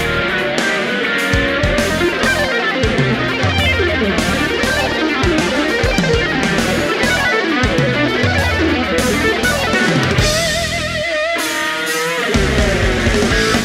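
Distorted electric guitar playing fast shred-style lead lines over a backing of bass and drums. About ten seconds in, the low end drops away and a single held note wavers with vibrato, then the full backing comes back in near the end.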